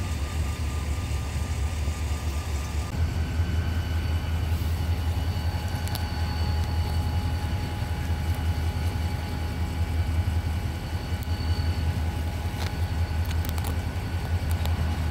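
Steady low engine rumble with a few faint high whines that change pitch about three seconds in.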